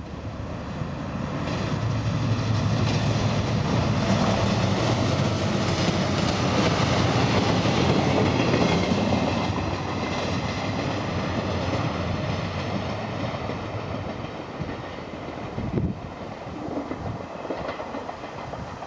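DE15 diesel-hydraulic locomotive and its 12-series passenger coaches passing. The diesel rumble builds to its loudest about halfway through, with wheels clattering over rail joints, then fades as the train moves away.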